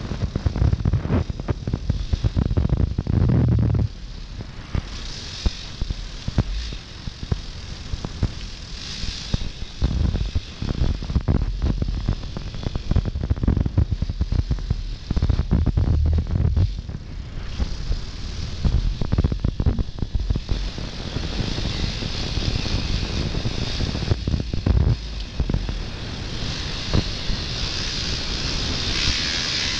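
Motocross bike engine running on a muddy trail ride, swelling and dropping with the throttle, loudest in the first few seconds and again about halfway, with knocks from bumps in the track. Wind buffets the microphone, growing stronger over the last ten seconds.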